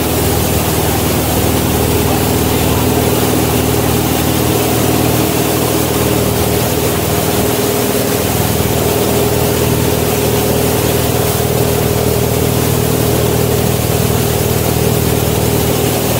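Wakesurf boat's inboard engine running steadily under way, with the rushing churn of its wake just behind the stern.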